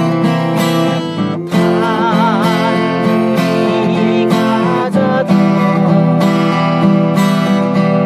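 Background music: acoustic guitar strumming, with a melody line that wavers in vibrato over it.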